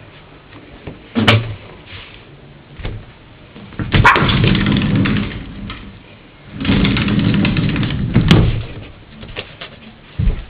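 A small dog, a Yorkshire terrier mix, scuffling and scrabbling about, with sharp knocks: one about a second in, one about four seconds in and one a little after eight seconds. Each of the two later knocks runs into a second or two of scrabbling.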